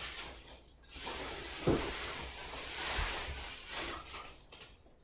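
Plastic bubble wrap and cardboard packaging rustling and crinkling as a wrapped guitar is pulled up out of a tall shipping box, with a couple of light knocks.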